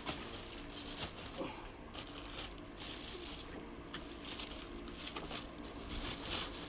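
Clear plastic bag crinkling and rustling unevenly as it is pulled off a portable speaker, louder at moments about three and six seconds in.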